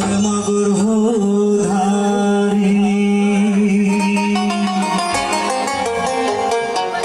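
Bengali Buddhist kirtan sung live: a male voice singing through a microphone and PA over electronic keyboard accompaniment. A steady low held note runs under the melody and changes about five seconds in.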